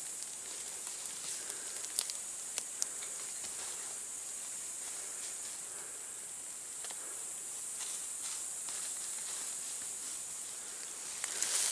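Footsteps through forest undergrowth: soft rustling and a few sharp twig snaps about two to three seconds in, over a steady high-pitched hiss.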